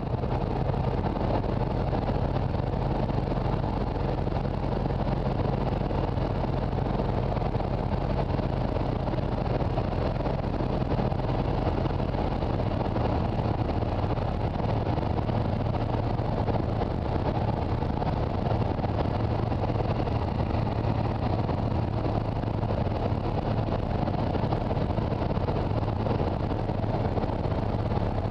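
Steady drone of a 1963 Piper Cherokee 235's Lycoming O-540 six-cylinder engine and propeller in flight, heard inside the cabin, with wind rushing over the airframe.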